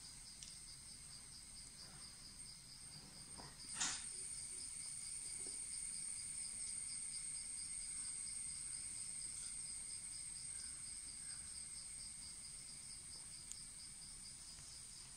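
Insects chirring steadily: a continuous high whine over a quickly pulsing trill. A single sharp knock about four seconds in stands out as the loudest sound.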